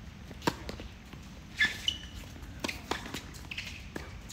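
Tennis serve and rally: a ball struck off a racket about half a second in, then a quick run of sharp knocks from racket hits and ball bounces on the hard court, with a short squeal between them.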